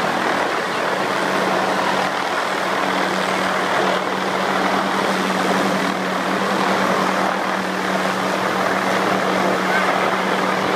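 Helicopter hovering overhead: a steady rotor and engine drone with a low, even hum beneath it.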